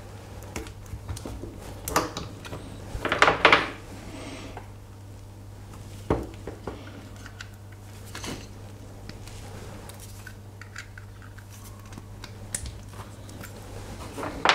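Diagonal cutters snipping through the metal tabs that join the cylindrical cells from a 9-volt battery: a cluster of sharp metallic snips about three seconds in, single snips near six and eight seconds, and a few lighter clicks later.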